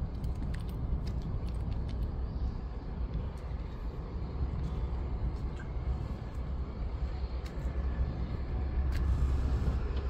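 Steady low rumble of sea wind buffeting the phone's microphone, with a few faint clicks scattered through it.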